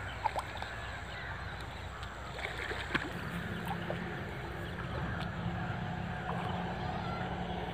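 Outdoor background noise with many scattered faint calls. A steady low hum joins in about three seconds in.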